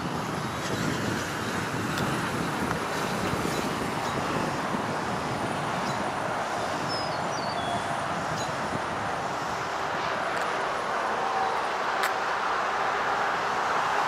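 Steady traffic noise from a highway, with trucks and cars driving past.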